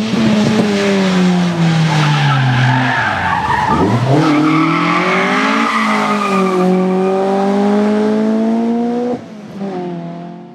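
VW Golf Mk2 rally car's engine at full effort on a rally stage: the engine note falls for about three seconds, dips sharply and swings back up as the car goes by, then climbs steadily as it accelerates hard, with tyre noise underneath. About nine seconds in the sound drops abruptly to a quieter engine that fades out.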